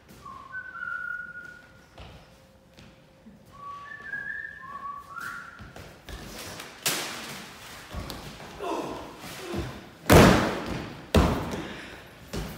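A person whistling a few short notes of a tune, then stage-combat sounds: a sharp hit about seven seconds in, vocal cries, and a heavy thud about ten seconds in as a body goes down on the floor, followed by another sharp hit.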